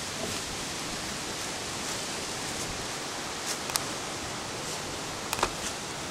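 Steady hiss of outdoor background noise, with a few faint sharp clicks or crackles about three and a half seconds in and again about five and a half seconds in.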